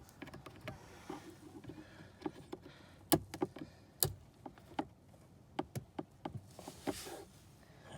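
Scattered plastic clicks and taps, with two sharp snaps about three and four seconds in, from unhooking the glove box's tension arm.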